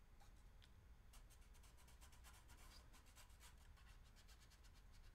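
Near silence, with a run of faint scratchy ticks from 3D-printed plastic parts being handled and rubbed, about a second in and lasting around two seconds.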